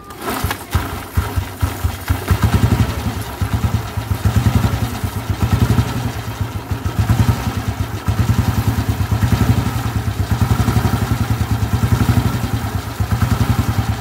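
Royal Enfield Bullet cast-iron 350cc single-cylinder engine running with its magneto rotor and stator exposed. The throttle is blipped, so the engine rises and falls in revs several times.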